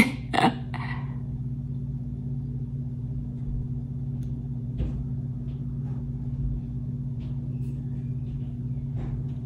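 A steady low machine hum, with a faint tap about halfway through.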